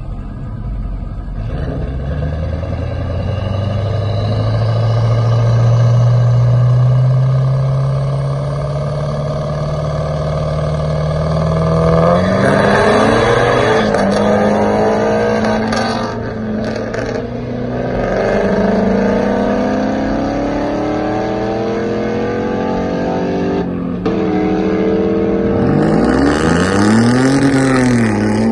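Drag-race cars' engines running at the starting line, their pitch slowly climbing as the revs build, then a loud launch about twelve seconds in as they accelerate away down the strip. Near the end comes another loud burst of engine noise with a pitch that rises and falls.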